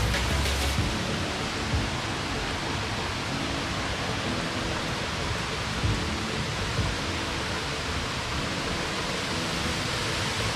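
Steady rushing of a nearby waterfall, an even hiss with no breaks.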